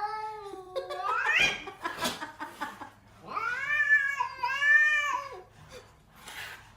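A cat yowling in long, drawn-out meows: one call in the first second and a half that rises at its end, then two more back to back a few seconds in.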